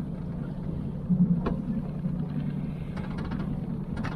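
30 hp Mercury outboard motor running at low speed, a steady low drone, as the aluminium tinny pulls slowly away from the jetty.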